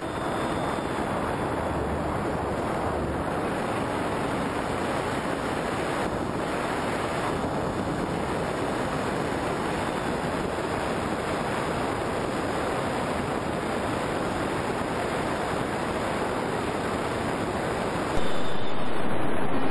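Steady rush of airflow over the onboard camera's microphone on a flying FPV model plane. About a second and a half before the end it suddenly gets louder.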